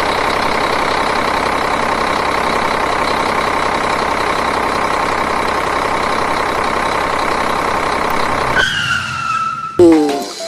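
Toy dumper truck running, a steady buzzing engine-like sound that cuts off about eight and a half seconds in. A falling electronic tone follows, then a brief loud sound just before the end.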